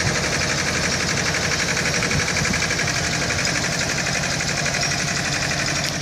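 Wagon drill rig working: a loud, steady engine drone with a fast, even rattle over it.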